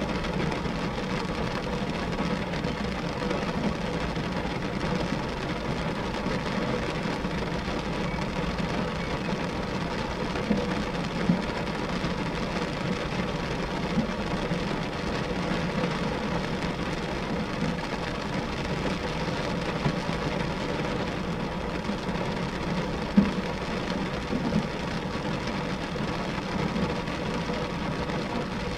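Steady rain falling on glass, an even hiss of drops with a few single louder taps standing out now and then, the clearest about two-thirds of the way through.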